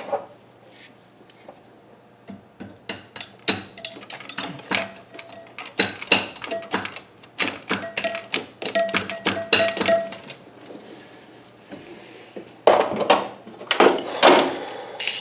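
Hand tools clicking and clinking on metal engine parts: many quick, irregular clicks with a short metallic ring, then a few seconds of louder scraping and rustling near the end.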